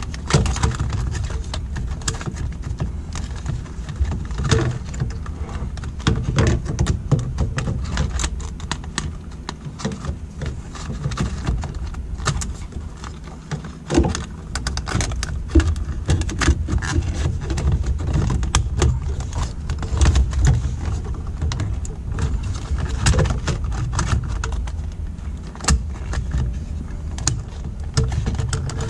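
Hard plastic Jeep center console being worked into place around the shift levers: scraping and rattling, with many small clicks and knocks throughout.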